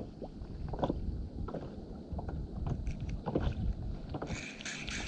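Wind on the microphone and water lapping against a kayak, with scattered small knocks from the rod and reel being handled. A brief rasping hiss comes near the end.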